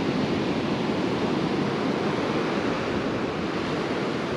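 Rough ocean surf breaking and washing up the beach, a steady rush with no letup.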